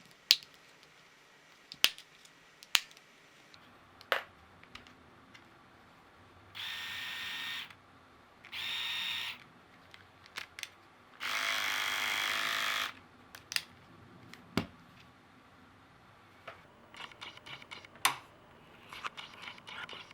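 Remington R5130 rotary electric shaver motor buzzing in three short runs, the last one longest at about a second and a half, with sharp clicks and handling taps before and after.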